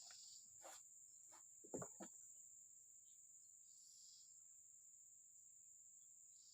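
Faint, steady high-pitched insect chorus, such as crickets, with a few soft knocks in the first two seconds.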